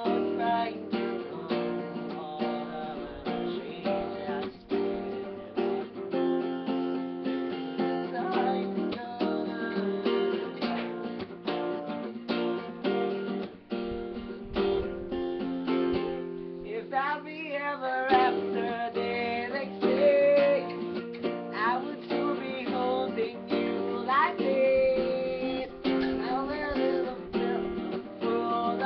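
Acoustic guitar with a capo, strummed chords played continuously.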